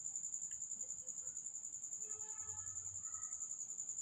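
Insect trilling: one steady, high-pitched, rapidly pulsing trill.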